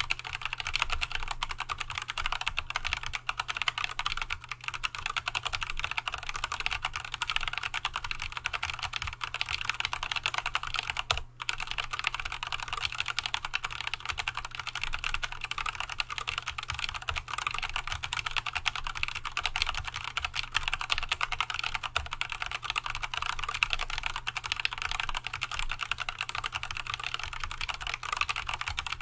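Continuous fast typing on an Archon AK87 mechanical keyboard with stock, unlubricated Tealios V2 linear switches and Leopold keycaps: a dense, even stream of key clacks, broken once by a short pause about eleven seconds in.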